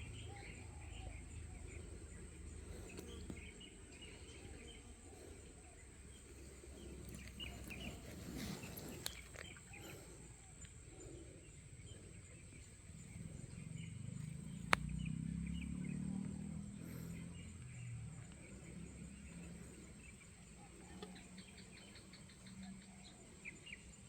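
Outdoor ambience: scattered bird chirps over a low, uneven rumble, with one sharp click about fifteen seconds in and a quick run of high ticks near the end.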